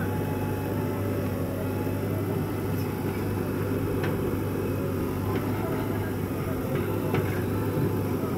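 Diesel engines running steadily: a JCB 3DX backhoe loader working its backhoe arm, with a Mahindra tractor running alongside. A couple of faint clicks come about four and seven seconds in.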